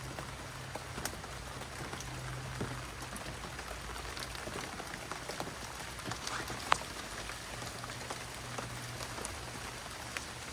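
Steady rain falling on dense garden foliage, with scattered drips and one sharper tap about two-thirds of the way through.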